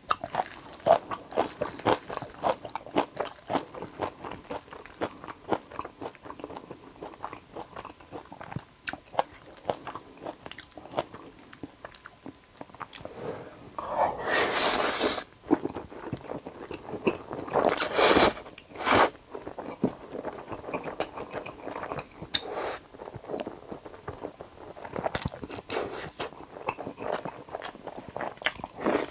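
Close-miked eating of jjapaghetti black-bean noodles: steady wet chewing and mouth clicks, broken about halfway through by a long loud slurp of noodles and then two shorter slurps.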